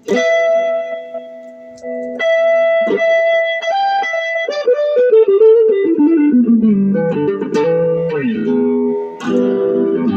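Electric guitar played through a 5-watt Fender Vibro Champ reverb amp with an Ibanez TS9 Tube Screamer overdrive: a held opening note, then single-note lead lines that run downward in the middle and bend up and down near the end.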